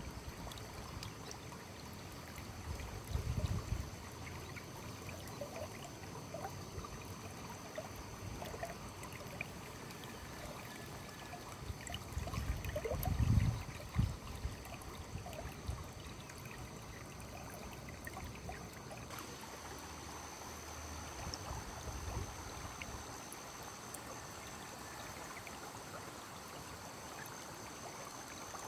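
A small stream running steadily. Two short low rumbles come about three seconds in and again about thirteen seconds in.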